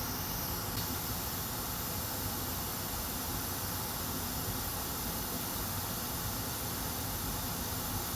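Hot-air rework station blowing a steady hiss of air onto a laptop motherboard, set to 500 °C to desolder a chip.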